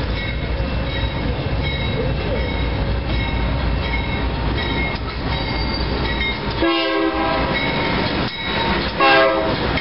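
Steady low rumble of an approaching BNSF GE Dash 9-44CW diesel locomotive, with two short blasts of its multi-chime air horn about two seconds apart near the end.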